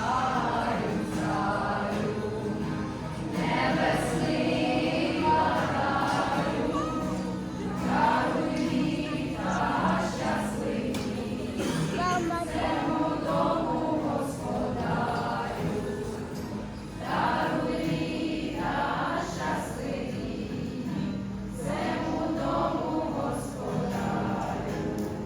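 A choir singing, with phrases that pause and restart every few seconds.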